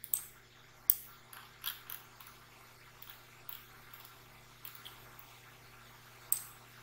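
Scattered computer mouse clicks, eight or so sharp single clicks at uneven intervals, the loudest near the start and one near the end, over a faint steady low hum.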